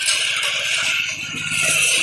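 Neva MB-2 walk-behind tractor's engine running with a Zarya rotary mower attached and its discs spinning: a steady, even machine noise with a dense high hiss, dipping briefly a little past the middle.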